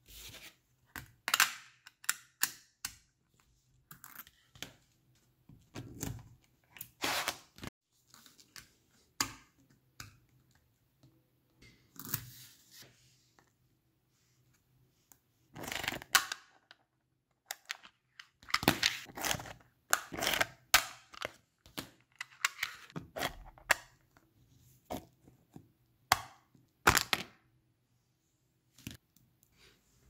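Small neodymium magnetic balls clicking and snapping together as blocks of them are handled and set in place, with a paper card scraping against them as it slides. Sharp clicks come in irregular clusters, with short pauses between them.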